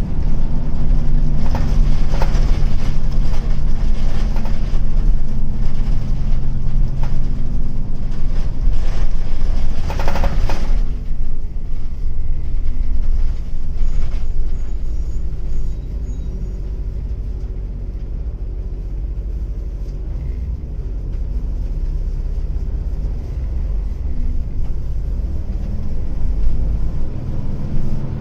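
Hino Blue Ribbon long-body city bus heard from inside, its diesel engine running under load, with an engine note that is a little unlike a normal Blue Ribbon's. A brief burst of noise comes about ten seconds in. The engine then drops to a quieter run before picking up again near the end.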